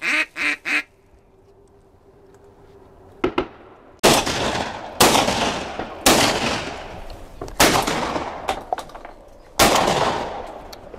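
A duck quacking a few times, then shotguns firing five loud shots about a second apart starting about four seconds in, each shot dying away over about a second.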